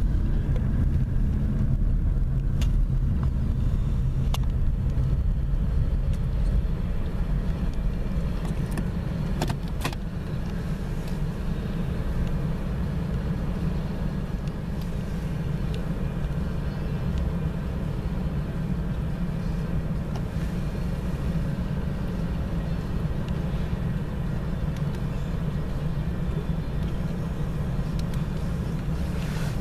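Steady low rumble of idling engines heard from inside a car stopped at a railroad grade crossing, with a few faint clicks about nine and ten seconds in.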